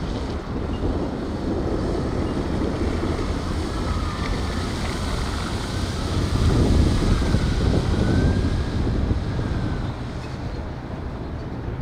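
Wind buffeting the microphone over choppy lake water, a steady rumbling noise. A faint high whine rises and falls a few times in the middle, as the electric hydrofoil boat passes close by.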